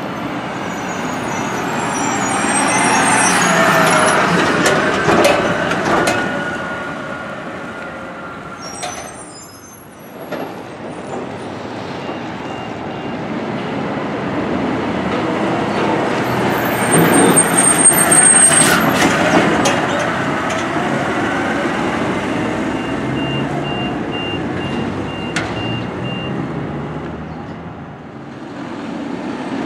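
Two garbage trucks drive past one after the other, each diesel engine swelling as the truck approaches and fading as it goes by. Brief high-pitched squeaks sound as each truck passes.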